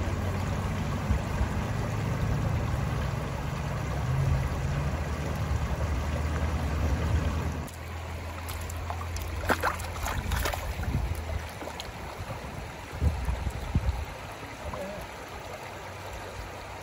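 Shallow mountain stream running and babbling over rocks. A low wind rumble on the microphone covers it for the first half and stops suddenly about eight seconds in, after which the water is clearer, with a few short, sharp sounds around the middle.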